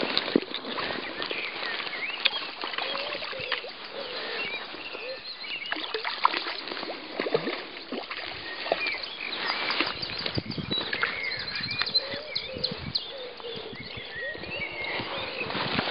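Birds singing and chirping over a steady outdoor hiss, with scattered sharp knocks and rustles close by.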